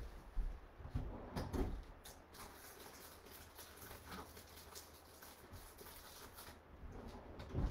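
Faint scattered knocks, clicks and rustling of someone searching through a wooden dresser across the room, with a slightly louder knock near the end.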